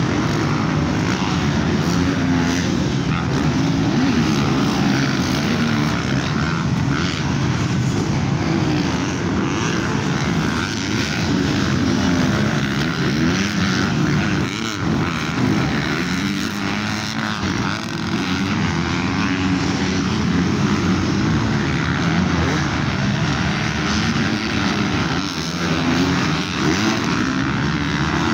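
Several motocross bikes' engines revving up and down, their pitch rising and falling over and over as the riders accelerate, shift and back off.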